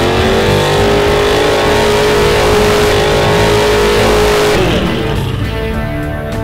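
Muscle car doing a burnout at the drag-strip start line: the engine revs up and is held high while the rear tyres spin with a dense hiss. About four and a half seconds in, the revs drop and the tyre noise stops.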